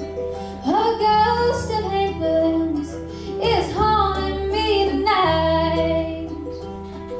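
Live band music with a woman singing lead. Her sung phrases start about a second in and stop shortly before the end, over electric guitar and steady held chords.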